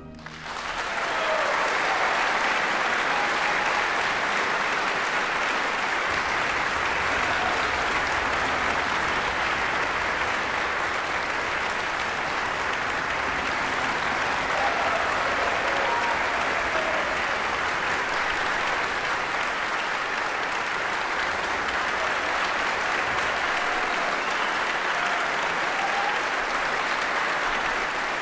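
Audience applauding steadily, swelling up within the first second or two as the orchestra's final chord dies away.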